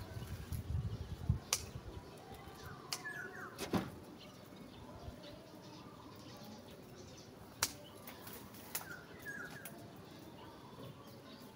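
Stems of a bird's eye chili plant being snapped off during pruning: rustling of the plant at first, then sharp single snaps a second or more apart, about six in all. Two short bird chirps sound in the background.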